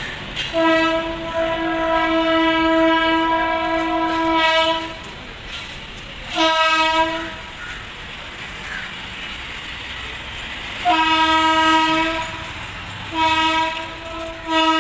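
Horn of a WAP-7 electric locomotive sounding as it approaches slowly. There is one long steady blast of about four seconds, then a string of shorter blasts: one about six seconds in, then three more close together near the end.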